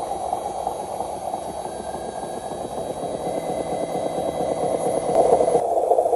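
Radio-controlled model truck's electric motor and gearbox running as it hauls a loaded semi-trailer through loose sand, a steady mechanical whirr that gets louder near the end.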